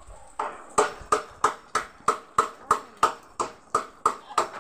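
Hammer driving nails into a wooden post of a timber house frame: evenly spaced blows, about three a second, each with a short ring.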